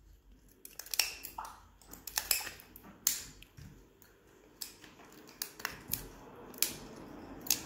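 Scissors snipping through a taped bundle of plastic drinking straws: a string of sharp, irregular snips about a second apart.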